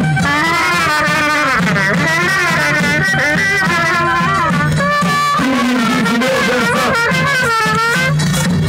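Brass band playing a Romanian folk dance tune, trumpets carrying a quick, ornamented melody over a steady low accompaniment.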